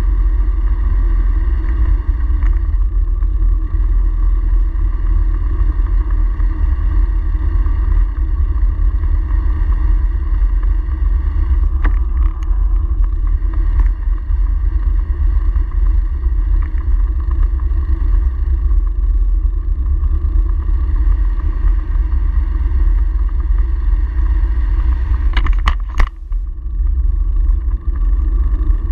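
Steady wind buffeting and road rumble on a handlebar-mounted camera while riding a bicycle over paved streets. Near the end comes a brief cluster of sharp knocks.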